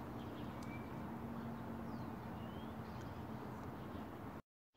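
Quiet outdoor background: a steady low hiss and hum with a few faint bird chirps. It cuts off to dead silence near the end.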